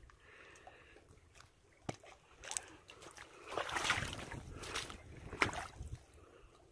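Shallow creek water sloshing and splashing in short, uneven bursts, loudest about four seconds in, with a few sharp clicks.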